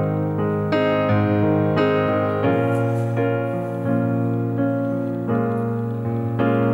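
Background piano music: a gentle melody of struck notes, a new note or chord about every half second to second.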